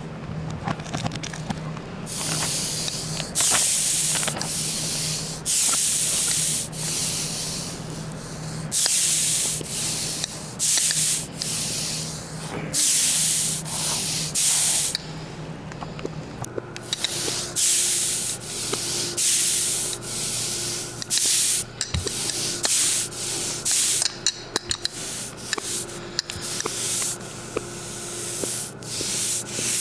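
Palette knife scraping and rubbing paint on a wooden board in repeated rough strokes, each about a second long and starting and stopping abruptly. A steady low hum runs underneath and changes pitch about halfway through.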